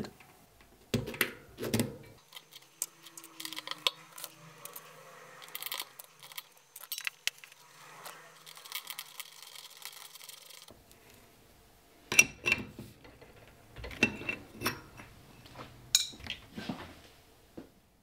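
Cassette spacers and an 18-tooth Chris King singlespeed sprocket being slid by hand onto a bicycle's rear freehub body: small metallic clinks and taps, in scattered clusters with a quieter stretch in the middle.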